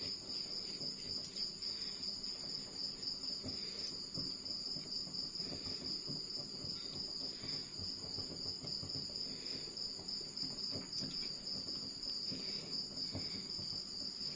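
Crickets chirping in a steady high-pitched trill, with faint soft handling sounds of hands rolling sticky dough into balls.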